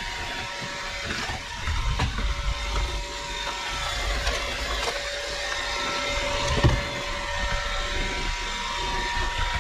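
Roomba robot vacuum running across carpet, a steady motor whine with brush and suction noise. Two sharp knocks come through, about two seconds in and again near seven seconds.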